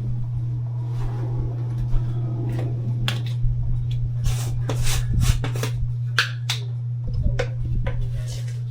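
Weight-training equipment clicking and knocking during a set, scattered sharp clicks over a steady low hum, the clicks thickest between about three and seven seconds in.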